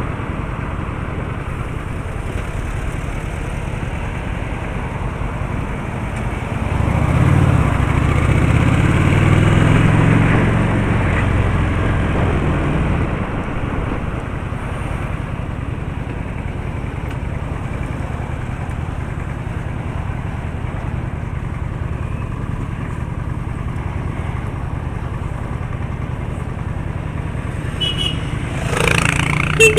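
Steady road traffic noise: vehicle engine and tyre hum. A louder spell of engine sound runs from about seven to thirteen seconds in, and a brief sharp sound comes just before the end.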